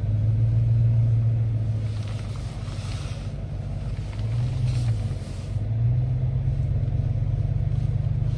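Pickup truck being driven, heard from inside the cab: a steady low engine and road drone that eases off about four seconds in, then builds again.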